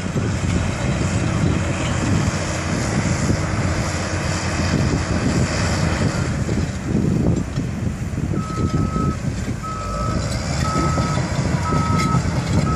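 Bulldozer's diesel engine running steadily. About eight seconds in, its reversing alarm starts, a bit more than one beep a second.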